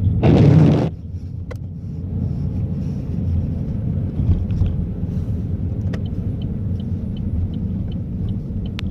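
Steady low rumble of a car's engine and tyres heard from inside the cabin while driving on snowy roads. A brief loud rush of noise opens it, a few sharp clicks come later, and faint regular ticking, about two or three a second, starts in the last few seconds.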